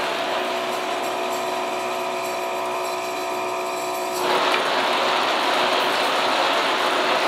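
Induma horizontal milling machine running at 300 RPM, its gear drive giving a steady mechanical whirr. A whine of several steady tones stops about four seconds in and the running noise becomes a little louder.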